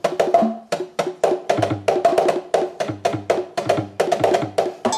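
Alesis Surge Mesh electronic drum kit played on its preset kit 17, a really high-pitched sounding kit, in a quick, steady run of hits.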